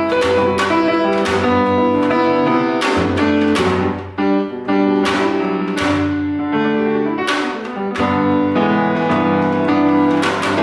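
Music from a live ensemble of piano, electronics, voice and percussion. Chords are struck about once or twice a second and left to ring over sustained notes, with a short dip about four seconds in.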